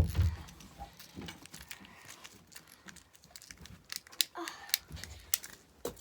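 Plastic fidget toys being handled and pulled from a bag: a thump right at the start, then scattered small clicks and rattles, busiest near the end.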